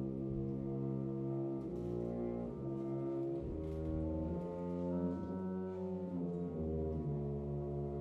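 Concert wind band coming in together out of a silence with sustained brass chords that shift every second or so.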